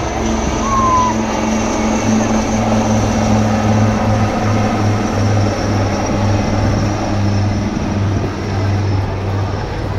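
Two military helicopters flying low overhead, their rotors giving a steady, evenly pulsing low drone.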